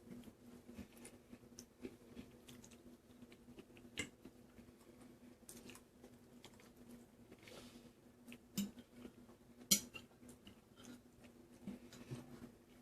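Soft chewing of penne pasta in red sauce, with a few sharp clicks of cutlery on the plate, the loudest nearly ten seconds in, over a faint steady hum.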